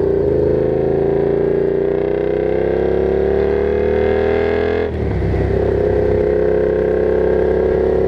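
Yamaha FZ-07's 689 cc parallel-twin engine pulling hard in third gear, its pitch rising steadily, then dropping suddenly about five seconds in as it shifts up to fourth and runs on at a steady pitch.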